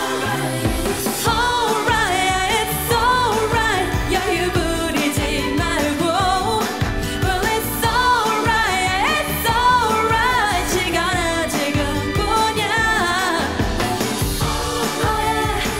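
K-pop song with singing over a steady beat.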